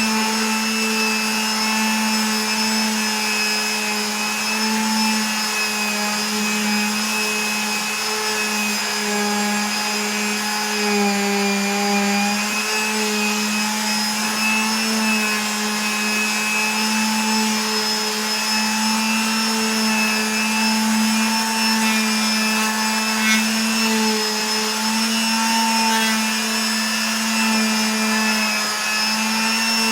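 A steady mechanical hum from a running motor, its pitch wavering slightly but never stopping.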